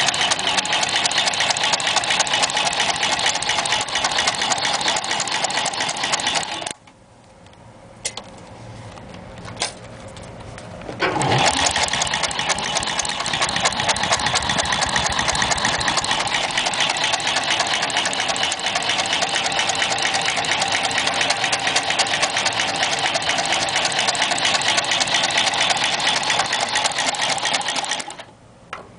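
Consew 2050 cylinder-arm walking foot sewing machine stitching through thick leather with a fast, even stitching rhythm. It stops about seven seconds in, a couple of clicks follow, then it restarts about eleven seconds in, rising in pitch as it gets up to speed, and runs until just before the end.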